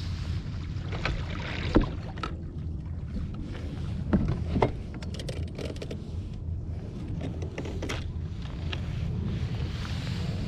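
Steady low wind rumble on the microphone aboard a small open fishing skiff, with a few sharp knocks about two seconds and four seconds in.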